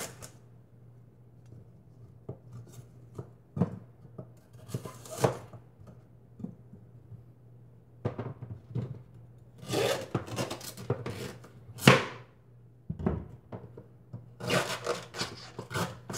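Knife peeling and cutting sugar cane on a wooden cutting board: irregular scraping strokes as the blade shaves off the tough rind, and knocks of the blade on the board, the sharpest about three-quarters of the way through.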